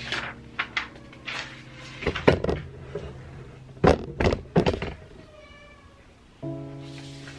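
Plastic heat-transfer sheets crinkling and scissors snipping through them, in several sharp bursts, the loudest around two and four seconds in. Background music fades low under them and comes back near the end.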